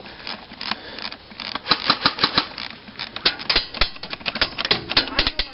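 Airsoft BBs striking the sheet-metal walls of a shelter: a rapid, irregular patter of sharp pings and clacks that thickens about a second and a half in.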